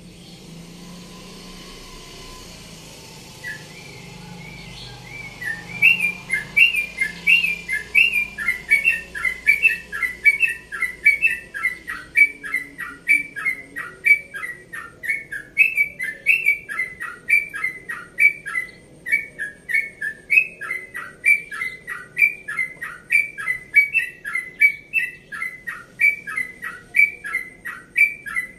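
Yellow-vented bulbul (trucukan) singing a long unbroken run of repeated short sweeping phrases, about two a second, starting about five seconds in. A low steady hum underlies the first few seconds.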